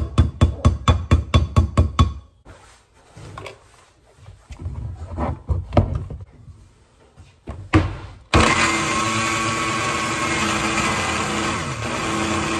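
A rhythmic music beat for the first two seconds, then a few soft knocks as fruit and the jar are handled. About eight seconds in, an electric countertop blender switches on and runs steadily, blending milk, banana and strawberries into a smoothie.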